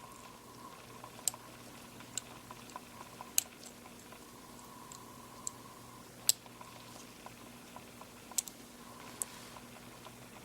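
Faint, scattered small clicks and ticks of fingers working a compact camera's lens unit and its flat ribbon cable. About seven sharper clicks stand out over a faint steady hum.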